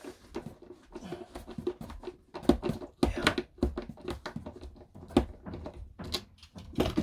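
Irregular knocks, thuds and clatter of interior panelling and fittings being pried and banged loose by hand in a small enclosed space.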